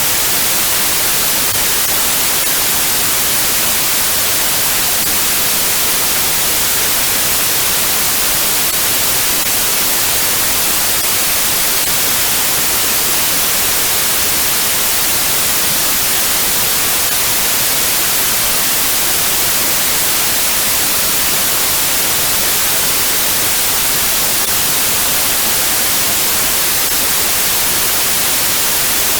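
Steady white noise: a constant, even hiss, strongest in the high frequencies, unchanging throughout, played to soothe a crying baby to sleep.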